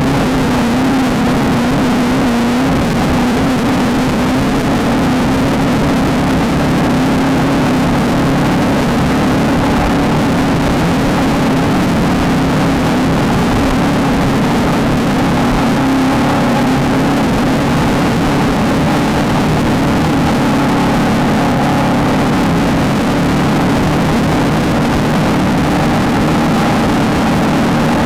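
Desert off-road race car's engine running hard at steady high revs. Its pitch wavers in the first couple of seconds, then holds, under a loud constant wash of noise.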